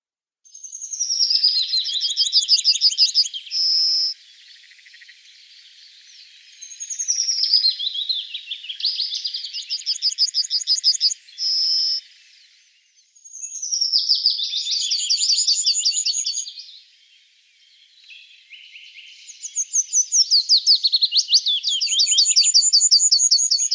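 A songbird singing the same fast, trilled phrase four times, each phrase a few seconds long, starting with a falling note and ending in a short clear whistle, with softer chirps between the phrases.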